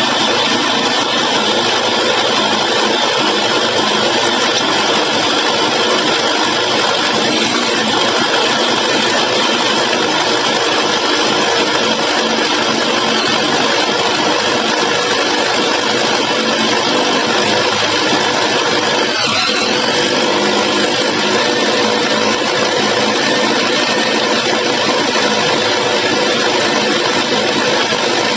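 Mollar HD-826 rotary hammer drill running steadily under load, its 65 mm hollow core bit cutting a hole into a masonry wall. The tool is held at an even, unforced pace.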